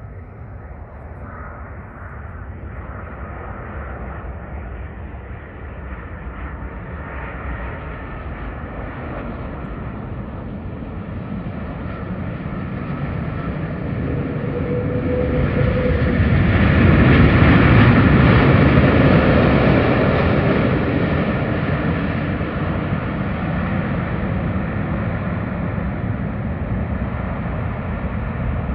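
Landing airplane's engines: a steady roar with a faint whine that swells to its loudest about two-thirds of the way through, then slowly fades as the plane passes and touches down.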